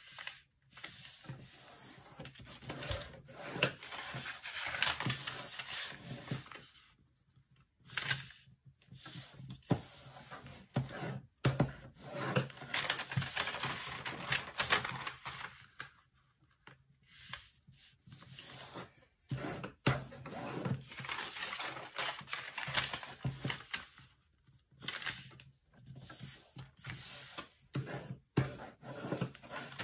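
A large sheet of origami paper being handled, folded and creased: rustling and crinkling, with a creasing tool rubbing along the folds. It comes in bursts of handling broken by short pauses.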